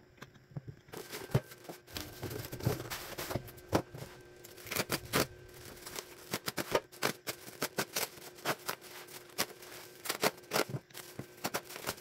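Plastic bubble-wrap packaging crinkling and crackling as it is handled, cut and torn open by hand, with many sharp irregular snaps.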